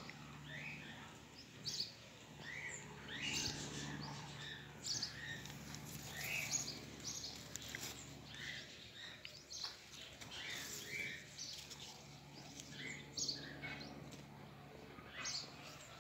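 Small birds chirping, short calls scattered every second or so, over a faint steady low hum.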